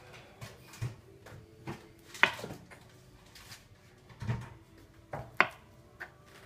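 A knife cutting through a peeled banana and knocking on a bamboo cutting board: several sharp taps at uneven intervals, the loudest about two seconds in and another strong one near the end.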